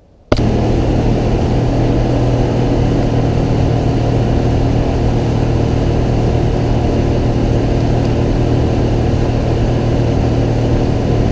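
A boat's engine running steadily while under way, with rushing noise over it. It cuts in suddenly just after the start.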